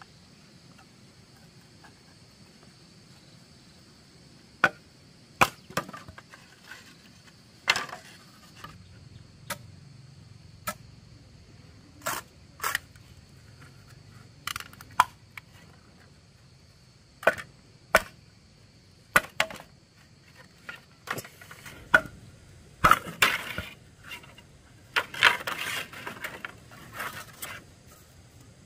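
Wood and bamboo being worked with hand tools: irregular sharp knocks and cracks, one or two at a time, with a denser run of cracking and scraping near the end.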